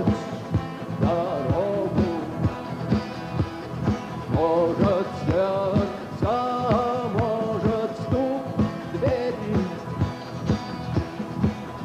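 Rock band playing live: an instrumental passage with a melody line in repeated phrases over a steady drum beat.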